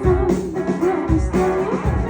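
Live rock band playing loudly: held, bending guitar notes over bass and drums.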